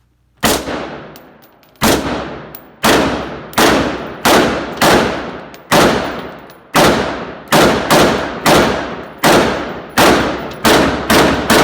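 A long string of about sixteen shots from a semi-automatic firearm, fired quickly at roughly one every half second to second, each a sharp crack with a short ringing tail.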